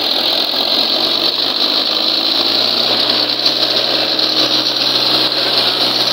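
Mahindra 275 DI tractor's three-cylinder diesel engine running hard and steady under heavy load, pulling a sand-laden trolley.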